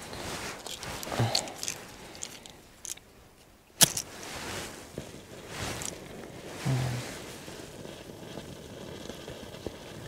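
Rustling and handling sounds with scattered clicks, and a wooden match struck once about four seconds in, flaring with a short soft hiss. The matches are old and have been slow to light.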